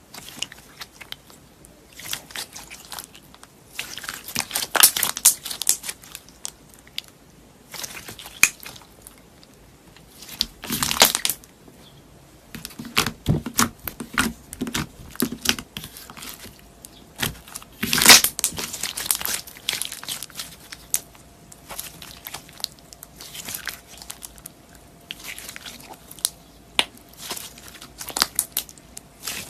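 Sponge slime being squeezed, pressed and pulled apart by hand: irregular crunchy, crackling crinkles in clusters with short quiet gaps, the loudest bursts about five, eleven and eighteen seconds in.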